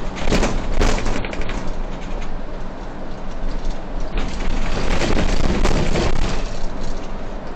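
Solaris city bus on the move, heard from the driver's cab: steady engine and road noise with two bursts of rattling and knocking, the first about half a second in and the second from about four and a half seconds in.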